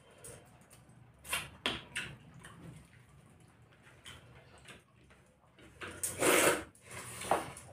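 Close-miked eating by hand: short wet clicks and smacks of fingers working rice and curry and of chewing, with a louder wet burst about six seconds in as a mouthful is taken.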